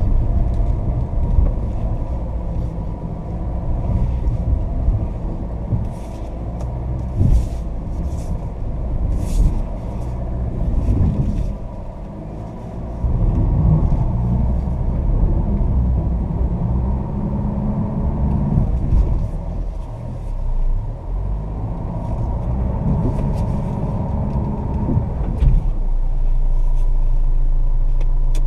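Fiat Toro's 2.0 four-cylinder turbodiesel heard from inside the cabin, pulling the pickup slowly along a rough dirt track, with knocks and rattles as it rides over the ruts. Near the end the sound changes suddenly to a steady, even drone.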